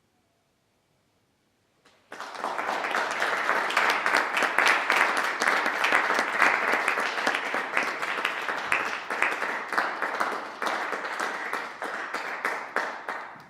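Audience applauding, beginning suddenly after about two seconds of near silence and stopping abruptly just at the end.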